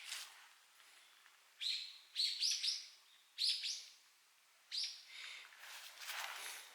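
Bird calls: about six short, sharp, high chirps, several in quick succession in the middle, with a softer rustle near the end.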